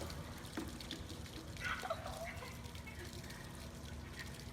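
Faint, brief voice sounds over a steady background hiss, from a home video's soundtrack being played back.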